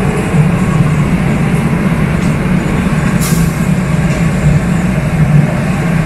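A DART Kinki Sharyo SLRV light rail train standing at the platform, its equipment giving a loud, steady hum and rumble, with one short hiss about three seconds in.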